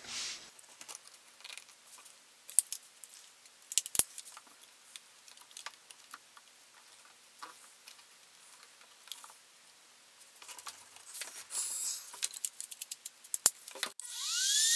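Scattered clicks, taps and light scrapes of a wood block and tools being handled on a workbench. Near the end a compact trim router switches on, its motor whine rising quickly in pitch as it spins up to speed.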